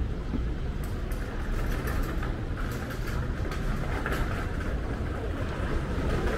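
Busy city street ambience: a steady rumble of road traffic, with a run of faint high clicks in the first half.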